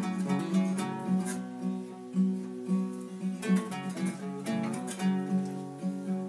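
Two acoustic guitars playing a folk song together, with plucked and strummed notes ringing.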